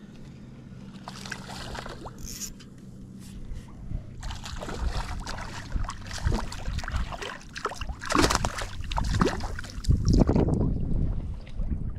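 Water splashing and sloshing in irregular bursts around a small snook being handled by a wading angler. The splashes start about four seconds in, after a faint steady low hum.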